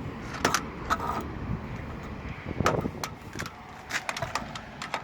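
Scattered light knocks and clicks over a steady low rumble.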